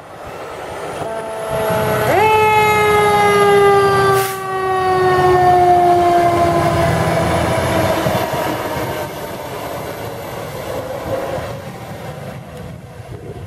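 Fire department aerial ladder truck pulling out to respond, its diesel engine rumbling. About two seconds in, a loud warning tone starts abruptly and then slowly sinks in pitch and fades over the next several seconds as the truck drives off.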